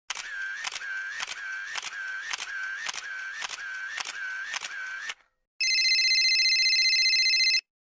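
A run of about ten sharp mechanical clicks, roughly two a second, each followed by a short whir. After a brief pause comes a steady electronic buzz lasting about two seconds, which cuts off abruptly.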